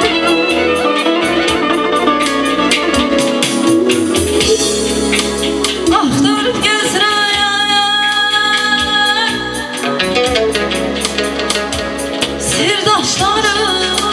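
Live band music with electric guitar and synthesizer keyboard over a steady beat; about six seconds in a woman starts singing into a microphone, the band going on under her voice.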